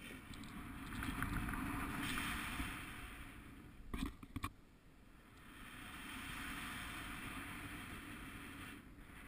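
Wind rushing over the camera microphone during a parachute descent, swelling and easing. A few brief knocks come about four seconds in.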